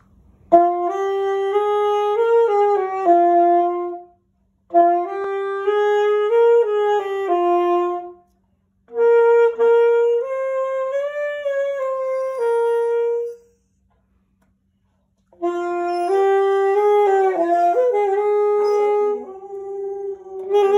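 Saxophone played in four short phrases of held and stepping notes, each broken off by a pause, the longest gap about two-thirds of the way through.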